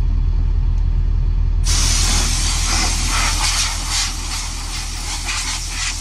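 Compressed air hissing loudly from an air-hose blow gun, cutting in suddenly about a second and a half in and blowing chaff off a tractor, over the steady low rumble of an engine running.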